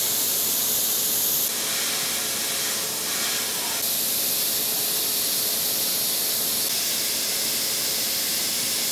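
Airbrush hissing steadily as it sprays thinned black paint, the hiss shifting slightly in tone a few times as the trigger is worked.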